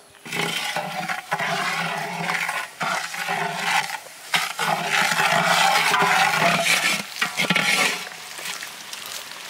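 Metal spatula scraping and clinking against a metal pot as sugar syrup is stirred, with the syrup sizzling and bubbling at the boil. The stirring stops about eight seconds in.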